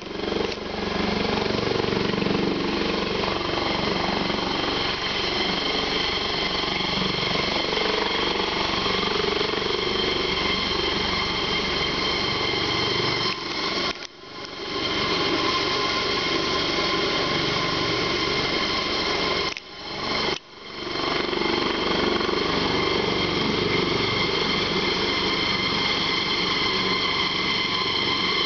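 Rescue helicopter running on the helipad before takeoff: a steady turbine whine over the rotor's rapid chop. The sound drops out briefly twice, about halfway through and again a few seconds later.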